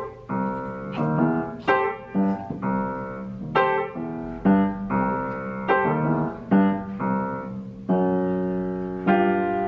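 Upright piano being played: a string of chords struck one after another, each ringing on and fading before the next.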